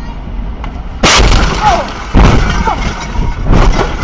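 A car crashing into the back of a truck, heard from inside the car: three loud crashing impacts, the first about a second in, then one about every second and a quarter.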